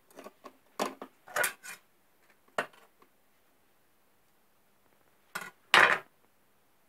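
Metal knife and cake server clinking and scraping against a ceramic plate as a slice of flan is cut and lifted: a run of light clinks in the first two seconds, then two louder knocks near the end, the last one the loudest.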